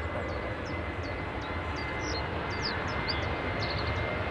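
KLM jet airliner's engines running steadily: a constant noise with a steady high whine. Over it come short high chirps, about three a second, from a small bird.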